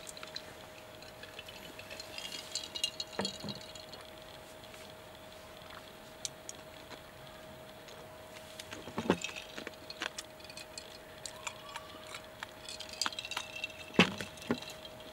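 Scattered light clicks and clinks of tableware, dishes and utensils being handled, with a few louder knocks, the loudest near the end, over a steady faint hum.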